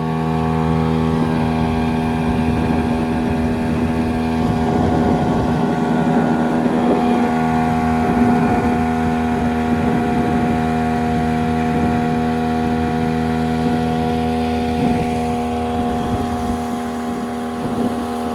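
A 15 hp Speed outboard motor running steadily, driving a small fibreglass boat along. The engine note holds even throughout.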